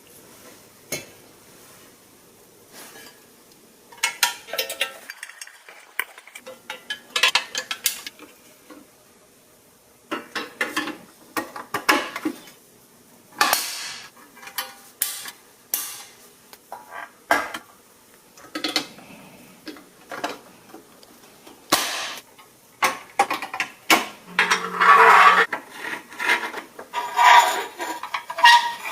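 Irregular clinks, clacks and knocks of small hard toy parts and tools being handled and set down, busier in the second half.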